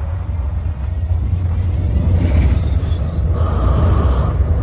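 Diesel locomotive engine running, a deep steady rumble that grows louder.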